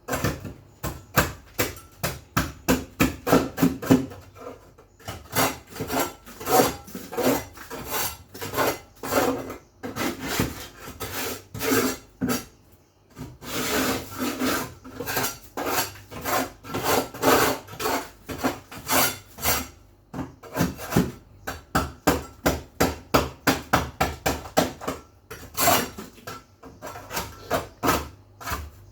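Hand scrubbing of a hard surface: quick back-and-forth rasping strokes, about three a second, with a couple of short pauses.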